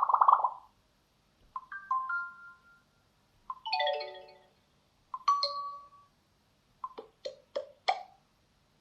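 Xiaomi Mi 9 Lite's built-in notification and alert sounds played one after another through the phone's speaker: a series of short, different electronic chimes with brief gaps between them, the last one four quick strikes.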